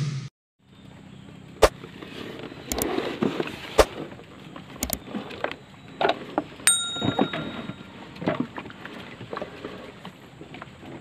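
Intro music cuts off right at the start. Then scattered knocks and clunks from a wooden fishing longboat as a man moves about in it and handles his rods, over a steady outdoor hiss, with one short electronic chime about seven seconds in.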